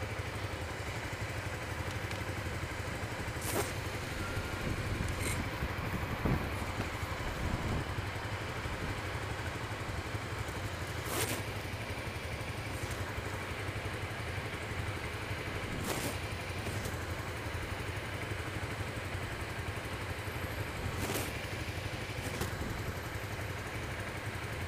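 Maxi-scooter engine idling steadily, heard through a helmet-mounted microphone, with a few sharp clicks every few seconds.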